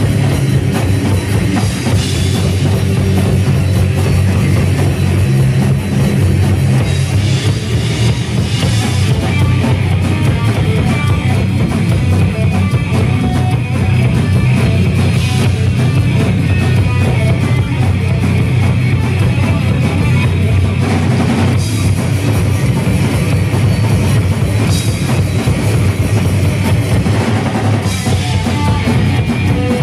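Live metal band playing loud: distorted electric guitars, bass guitar and drum kit, heard from the crowd.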